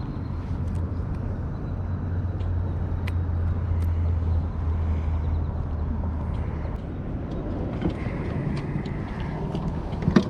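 A motor vehicle's low, steady engine hum over a noisy background, fading out about two-thirds of the way through.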